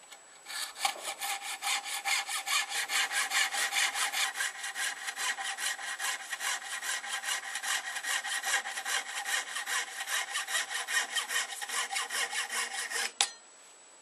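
Hand saw cutting through antler held in a vise, in steady back-and-forth strokes at about four a second. The strokes stop near the end with one sharp click as the cut is finished.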